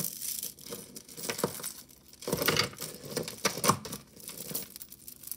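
Tangled costume jewelry being handled and pulled apart: plastic beads and metal chains clicking and clinking against each other, with irregular rustling and crinkling.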